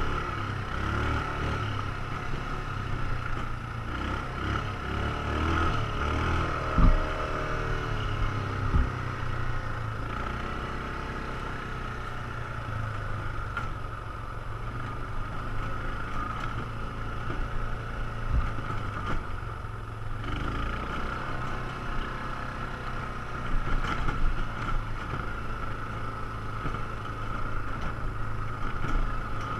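Quad ATV engine running under way on a dirt trail, its pitch rising and falling with the throttle, with a steady high whine over it. A few sharp knocks as the machine jolts over bumps.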